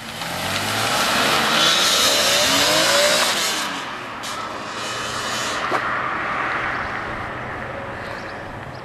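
BMW E46 sedan accelerating hard away, its engine note rising in pitch over tyre and road noise. It is loudest two to three seconds in, then fades as the car pulls off into the distance.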